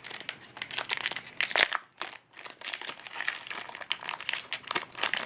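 Wrapper of a hockey card pack crinkling and tearing as it is ripped open by hand, with a brief pause about two seconds in.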